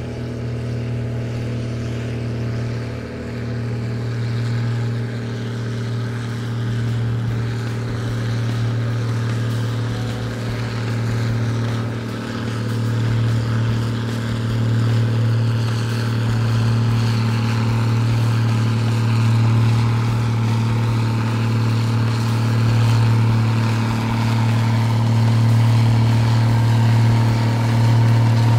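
Case International 1455 tractor's diesel engine running hard and steady under full load while pulling a weight sledge, its drone holding one pitch and growing gradually louder as the tractor comes closer.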